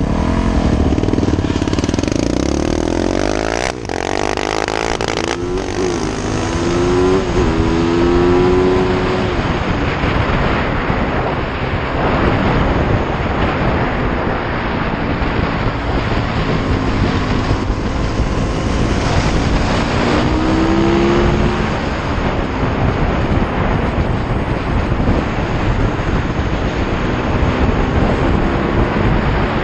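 Yamaha YZ450F dirt bike's four-stroke single-cylinder engine accelerating hard, revs climbing and dropping through several gear changes in the first several seconds and again about two-thirds through, then running at speed with wind rushing over the microphone.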